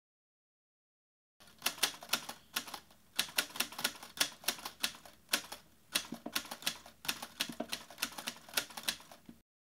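Typing: a fast, irregular run of sharp keystroke clicks that starts about a second and a half in and stops just before the end.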